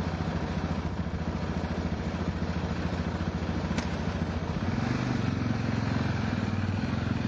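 Diesel shunting locomotive's engine idling with a steady low chugging rumble, growing a little louder and higher about two-thirds of the way in.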